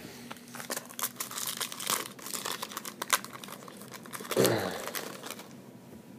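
Foil trading-card pack wrapper crinkling and tearing as it is ripped open and handled, a dense run of small crackles. About four seconds in there is one louder, short sound with a falling pitch.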